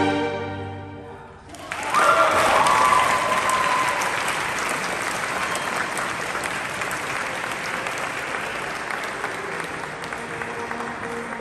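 A string orchestra's last chord dies away, then an audience breaks into applause about a second and a half in, with a whoop as it starts; the clapping slowly fades.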